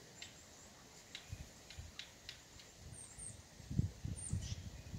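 Faint outdoor ambience: small birds chirping a few times, short and high. From about three and a half seconds in, low irregular rumbles and thumps come in and are the loudest part.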